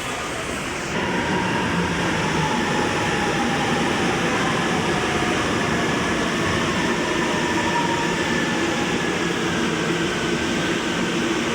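MRT-3 commuter train running, heard from aboard: a steady rumble and hiss of the car on the track with a faint electric motor whine that slowly shifts in pitch. The noise gets louder about a second in.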